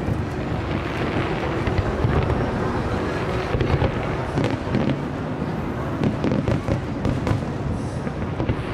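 Aerial fireworks display: many shells bursting and crackling in quick succession, a continuous dense barrage with no pause.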